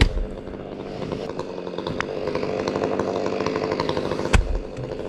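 Chainsaw running steadily, with two heavy thumps, one right at the start and one about four seconds in.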